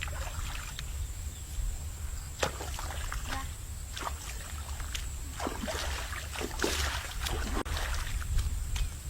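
Water and mud sloshing and splashing in short, irregular bursts over a steady low rumble, with a denser splashy patch about two-thirds of the way through.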